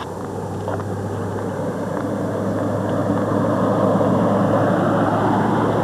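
A motor vehicle passing close by on the road, its engine and tyre noise swelling over a few seconds and staying loud near the end.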